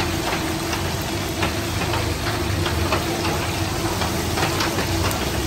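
Battered meat chaap deep-frying in hot oil in a large shallow pan: a steady sizzle with scattered crackles and pops as pieces are dropped in, over a low steady hum.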